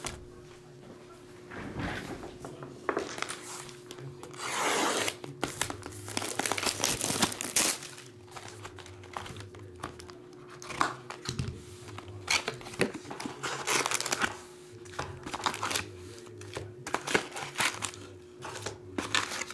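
Shrink-wrap cellophane on a trading-card hobby box being slit and torn off, crinkling, with the cardboard box knocked and handled, and foil card packs rustling as they are lifted out. The longest tearing rips come about five to eight seconds in, over a faint steady hum.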